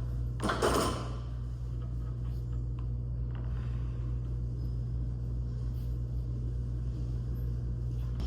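Steady low hum of room noise, with one short burst of noise about half a second in.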